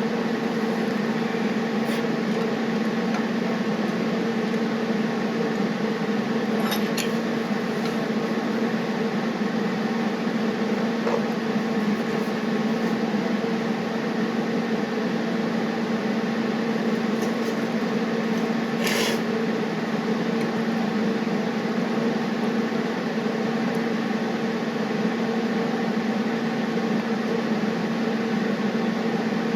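Brazing torch flame burning steadily: a constant hiss with a low hum under it, and a couple of faint clicks.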